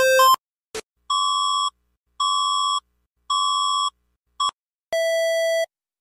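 Electronic emergency alert tones. A rapidly alternating two-tone pattern cuts off right at the start; after a click come three short, even beeps about a second apart and a brief blip, then from about five seconds in longer, lower, buzzier beeps like a busy signal.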